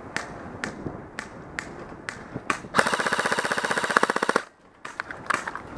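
Airsoft rifle firing: a few single shots about half a second apart, then a rapid full-auto burst of about a second and a half at roughly twenty shots a second, followed by a few more scattered pops.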